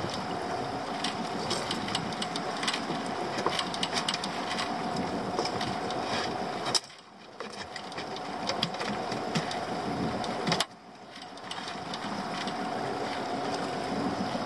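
Small boat's outboard motor idling steadily, with scattered clicks and knocks of handling in the boat. Twice the whole sound drops away suddenly and swells back over a second or so.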